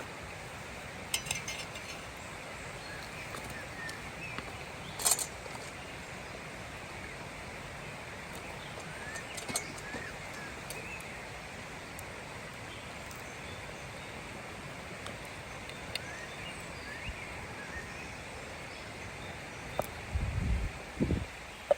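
Outdoor forest ambience: a steady hiss with faint, short bird chirps scattered through it, a few sharp clicks, and some low thumps near the end.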